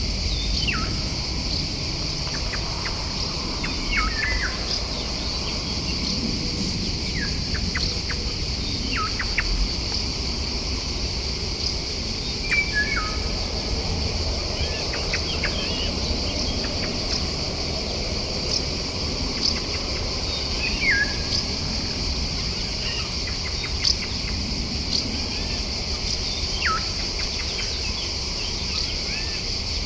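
Wild birds giving short whistled calls that fall sharply in pitch, about half a dozen scattered through, over a steady high-pitched insect chorus.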